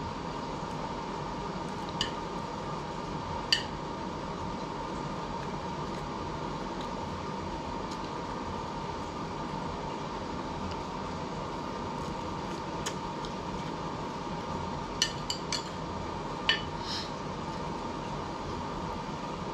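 Cutlery clinking against a plate during a meal: two single clinks early, then a quick cluster of four or five clinks near the end, over a steady background hum.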